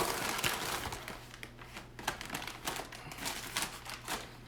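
Pin mystery-box packaging crinkling and rustling as it is handled and opened, with many small crackles and clicks.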